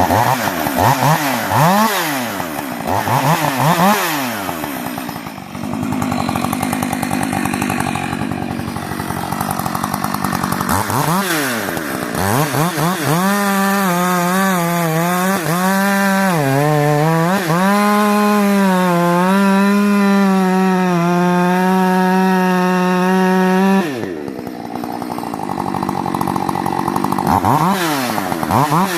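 Rebuilt Husqvarna 562 XP two-stroke chainsaw revved in repeated blips. About halfway through it is held at high revs for roughly ten seconds, wavering at first and then steady. The revs then drop back and it blips again near the end.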